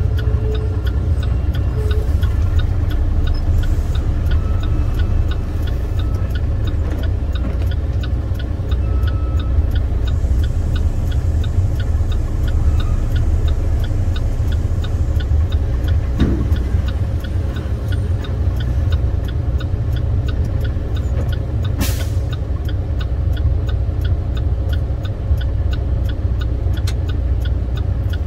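Semi truck's MaxxForce 13 diesel engine running low and steady as the truck rolls slowly, heard from inside the cab, with faint steady ticking and one sharp click a little over three-quarters of the way through.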